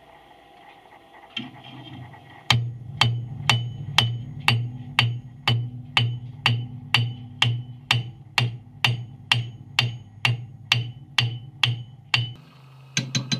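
Hand hammer striking a red-hot katana blade on an anvil: an even run of about two ringing blows a second, starting about two and a half seconds in and stopping near the end, over background music.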